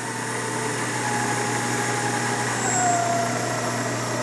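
Spindle and 3 hp inverter-driven motor of a Victor variable-speed milling machine running, a steady hum with a whine that slowly falls in pitch as the spindle speed comes down.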